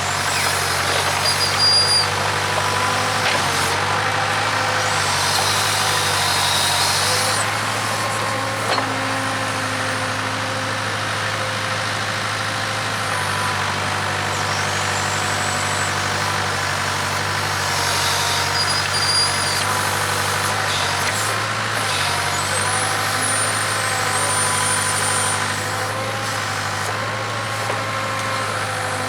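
Case 580K backhoe's four-cylinder diesel engine running steadily as the hoe is worked. Short high-pitched squeals and hissing come a few seconds in and again about two-thirds of the way through.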